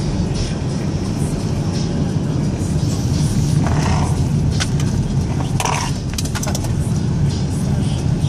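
Steady low rumble of a car's engine and tyres heard from inside the cabin while driving, with a few short clicks and brief sounds about four and six seconds in.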